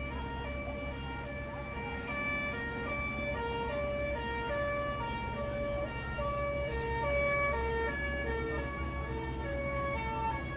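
Two-tone emergency siren alternating steadily between a high and a low note, from an airport fire truck responding to a plane crash, with a low rumble underneath.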